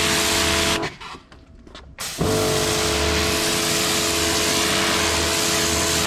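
Karcher K4 electric pressure washer running, its pump motor humming under the hiss of the water jet on paving tiles. The trigger is let go just under a second in and the motor stops at once; about two seconds in it is pressed again, and the motor comes back up to speed with a short rising hum and runs steadily until it cuts out again at the end.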